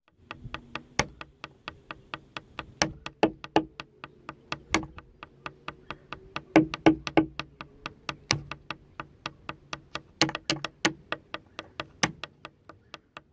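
A rapid, uneven run of sharp clicks or taps, several a second with some much louder than others, over a faint low hum.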